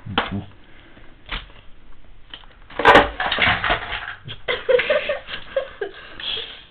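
Toys being handled and knocked about on a carpeted floor: a few light knocks, then a louder crash about three seconds in, followed by rustling and scuffing.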